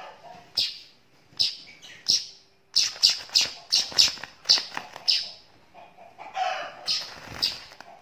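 Young weaver bird (burung manyar) giving a string of short, sharp high chirps, sparse at first, then quickening to about three a second between about three and five seconds in, while flapping its wings.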